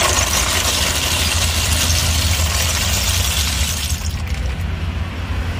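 Snail shells clattering as a scoopful of snails is tipped from a metal scoop into a wooden tub, the rattle stopping about four seconds in. A low rumble of street traffic runs underneath.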